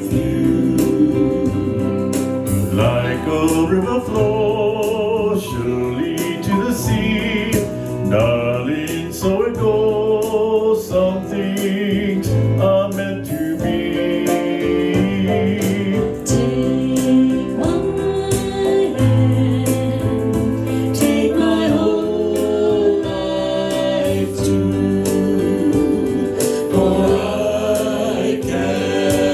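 Music with voices singing in a group over instrumental backing with a beat, in a gospel-like style.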